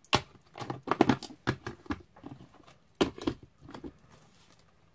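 Distress Oxide ink pad cases knocking and clacking as they are picked up and set down on a craft mat: a run of sharp taps in the first two seconds and a few more about three seconds in.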